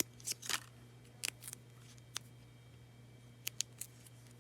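Scissors snipping during paper crafting: a handful of short, crisp snips and clicks spaced irregularly, over a faint steady low hum.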